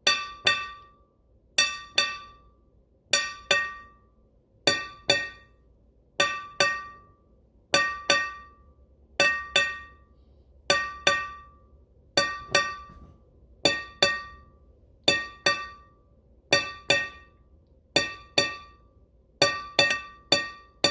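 Emergency alert chime: a pair of bell-like tones sounding about every one and a half seconds, over and over, with a quicker run of three near the end.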